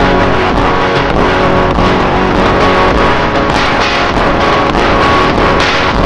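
Background music: guitar with a drum kit keeping a steady beat.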